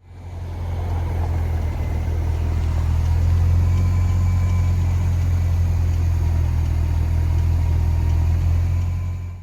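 Car engine idling steadily, a low even hum that starts and stops abruptly.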